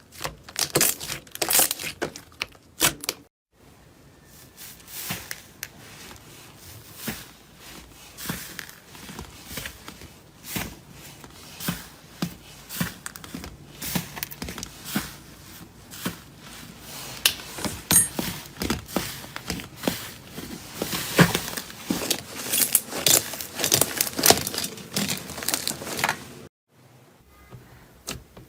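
Slime being squeezed, stretched and poked by hand, giving a dense run of crackling, crinkling pops and clicks, with two brief gaps where the sound cuts off and starts again.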